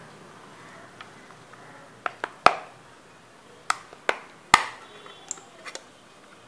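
Plastic back cover of a Tukzer 4G pocket Wi-Fi hotspot being pried off by hand. Its snap clips let go in a series of about eight sharp clicks over three and a half seconds, the loudest about two and a half and four and a half seconds in.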